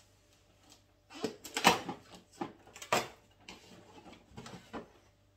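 Cardboard door of a Pringles advent calendar being torn and pried open, with loud scraping and rustling starting about a second in, then smaller knocks and rustles as the small Pringles can behind it is pulled out and handled.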